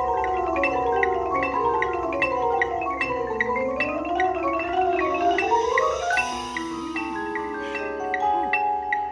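Marching band front ensemble of marimbas and other mallet percussion playing a run of overlapping notes that falls and then climbs again, settling into held chords about six seconds in. A steady metronome-like click keeps time underneath.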